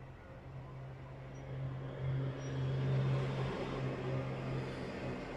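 Low engine hum of a road vehicle, swelling over the first three seconds and easing off toward the end, as a vehicle passing by.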